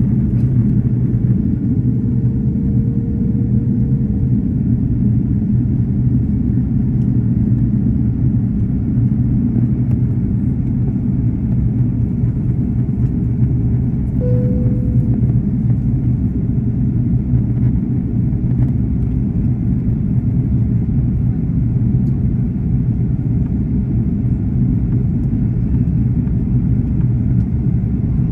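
Steady low cabin drone of an Airbus A330-200 at the start of its approach, engine and airflow noise heard from a window seat behind the wing. A faint higher tone comes and goes twice over the drone.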